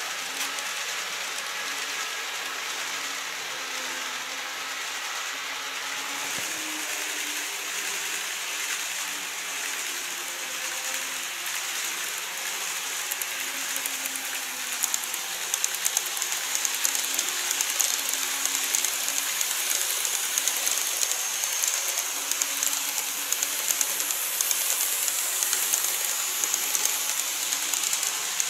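Model E257 series train running on its track: a low motor hum under rapid clicking of the wheels over the rail joints. About halfway through, as the train crosses a model truss bridge, the clatter gets louder and denser.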